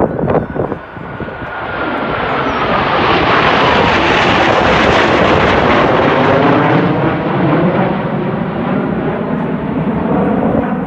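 Six Blue Angels F/A-18 Hornet jets passing overhead in formation: a loud jet roar that builds over the first two seconds, with a whine falling in pitch as they pass, easing slightly near the end.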